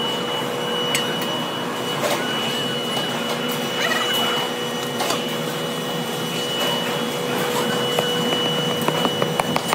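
A metalworking machine tool running steadily with a held whine, with a few scattered clicks and a quick run of light metallic clicks near the end.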